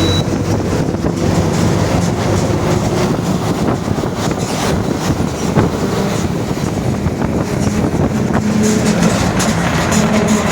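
Mercedes-Benz OF-1721 BlueTec 5 bus under way: steady running noise of the diesel engine and driveline with a droning growl from the rear differential, plus a couple of light knocks.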